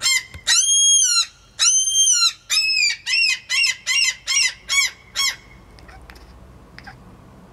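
Domestic cat calling at birds through a window screen: two drawn-out, high chirping calls, then a quick run of about seven shorter chirps that stops a little past halfway.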